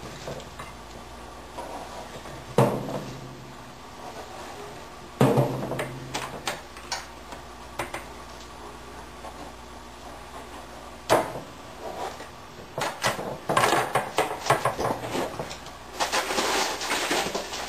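Kitchen handling sounds: a few separate knocks of things being set down or handled, about two, five and eleven seconds in, then a stretch of crackling rustle near the end, as of packaging being handled.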